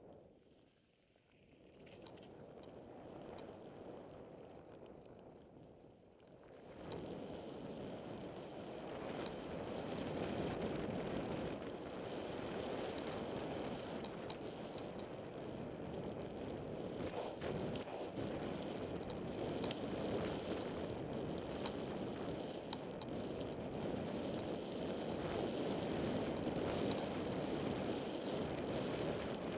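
Wind rushing over the camera microphone and mountain bike tyres rolling over a loose gravel trail at speed, with scattered rattles and clicks. The noise is lighter at first and builds about seven seconds in.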